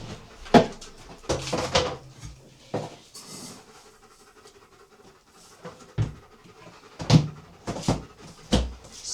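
A dog panting close by, in uneven bursts of breath with a pause in the middle.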